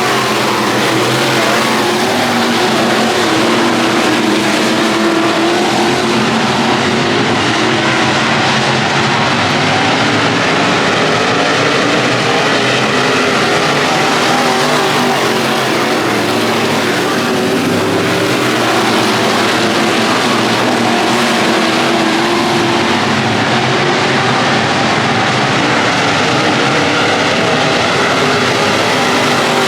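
Race car engine running hard on a dirt track, its pitch rising and falling steadily as the car goes around the laps.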